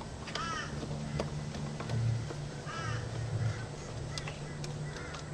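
A bird, most likely a crow, cawing outdoors: short harsh calls, once near the start and then a few in quick succession around the middle. A few light clicks and a steady low hum lie underneath.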